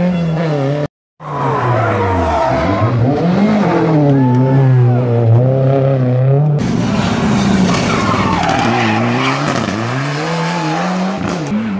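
Rally car engines revving hard through tight corners, their pitch rising and falling with throttle and gear changes, cut together from several passes. There is a brief silent gap about a second in and an abrupt change of sound about six and a half seconds in.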